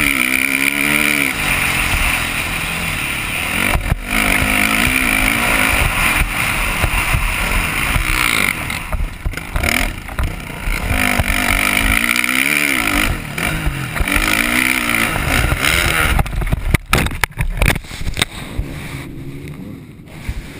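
Motocross bike engine revving up and down through corners and gear changes, heard from a helmet camera with wind rushing over the microphone. Near the end comes a cluster of sharp knocks and thuds as the bike crashes, and the engine note falls away.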